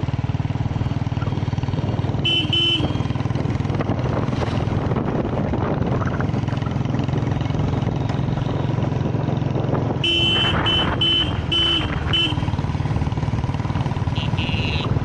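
Royal Enfield Bullet's single-cylinder engine running steadily on the move, with a horn beeping in short toots: twice about two seconds in, then a quick run of about five toots around ten to twelve seconds in.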